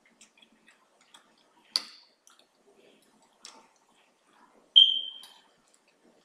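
Metal fork clinking against a dinner plate while cutting into steak: a sharp clink about two seconds in and a louder clink that rings briefly near five seconds, with faint small clicks between.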